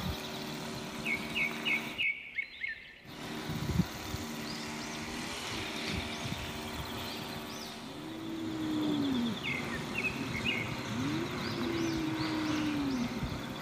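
Two tabby cats yowling at each other in a territorial standoff. A steady low moan runs for the first half, then come two long yowls that rise and fall in pitch. Small birds chirp in short runs in the background.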